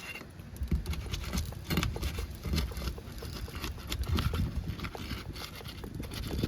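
Sealed asphalt roof shingles being pried up, breaking their seal: a run of irregular taps, cracks and scrapes over a low rumble.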